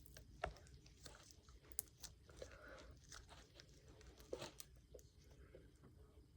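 Faint crackling, squelching and small pops from a tape-wrapped Play-Doh ball being squeezed and popped by hand, with a few louder clicks about half a second in, just under two seconds in and around four and a half seconds.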